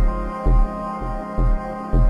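Background music with a steady low beat about twice a second over held, sustained tones.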